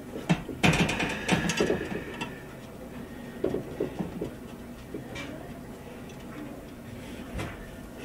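Metal clanks, scrapes and rattles of parts being handled inside a corn stove's sheet-metal housing while a new blower motor is fitted. It is busiest in the first two seconds, followed by a few scattered single knocks.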